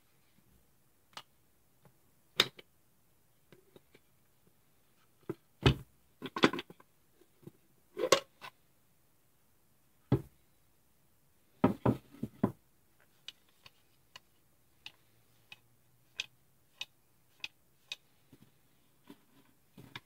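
Wooden puzzle box with tilt latches being tilted and handled on a wooden table: scattered knocks and clicks of wood on wood, with louder clusters of knocks about a third of the way in and just past halfway, then a run of light ticks.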